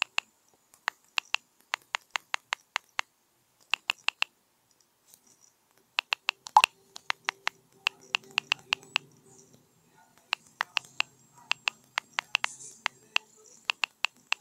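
Phone on-screen keyboard click sounds as a message is typed, in quick runs of taps with short pauses between words. About six and a half seconds in comes a single louder pop as the message is sent.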